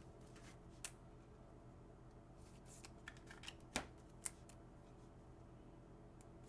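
Near silence with a few faint, sharp clicks and snips from trading cards and pack wrappers being handled.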